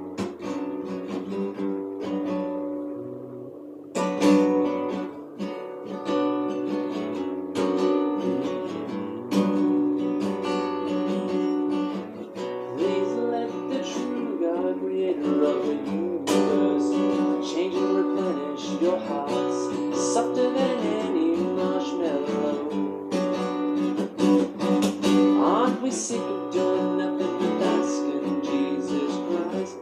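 Instrumental song introduction played on strummed guitar, with a steady run of chords. The sound dips about two seconds in and picks up with a strong strum at four seconds.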